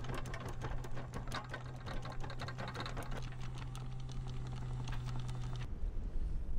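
Electric anchor windlass lowering the anchor: a steady motor hum under a rapid clatter of chain links running out over the gypsy. The clatter thins out after about three seconds, and the hum cuts off suddenly near the end.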